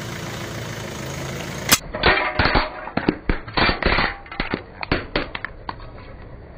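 A car tyre rolling over a thin blue plastic tray and crushing it. After a steady rushing noise, a loud crack about two seconds in starts a fast, irregular string of sharp cracks and snaps that lasts about four seconds and then dies away.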